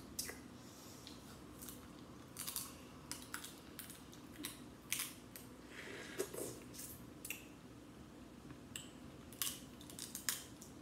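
Snow crab legs being eaten: irregular sharp cracks and clicks of shell bitten and broken, with short stretches of sucking and chewing between them.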